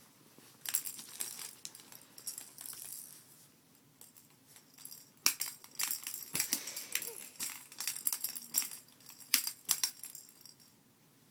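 Small hard objects jingling and rattling as they are shaken in irregular bursts, with a quieter gap in the middle.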